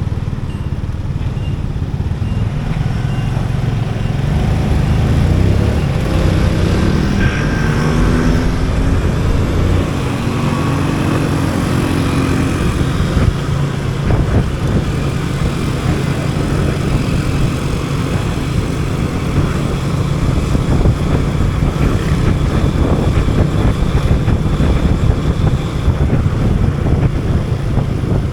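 Motorcycle engine running steadily under way, its pitch rising as it speeds up about a quarter of the way in.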